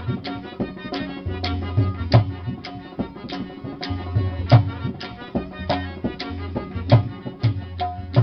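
Instrumental passage of Sindhi Sufi folk music: harmonium playing held chords over a low drone, with sharp drum strokes landing in a steady beat roughly every half second or so.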